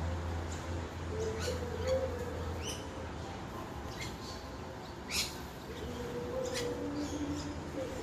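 Parrots calling from a tree: a string of short, sharp, high calls, about one a second, the loudest about five seconds in. A steady low hum runs underneath and fades about halfway.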